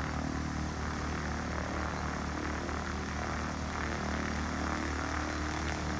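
Light single-engine high-wing propeller plane taxiing, its piston engine and propeller running at a steady low idle drone.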